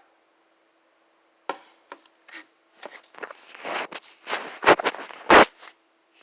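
Kitchen handling noises: irregular rubbing and scraping of dishes or utensils, ending in two sharp knocks less than a second apart.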